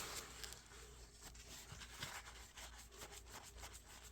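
Near silence, with faint scattered small clicks and light rubbing.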